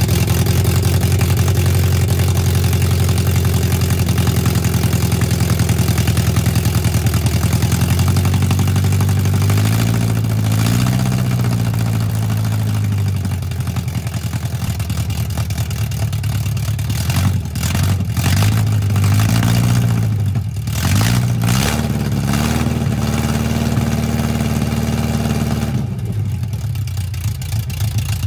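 Rebuilt Volvo B20 inline four-cylinder engine with twin SU HS6 carburettors running on its first start, with no exhaust pipes fitted. It runs steadily, picks up revs around ten seconds in, then rises and falls in pitch several times in the second half as the throttle is worked.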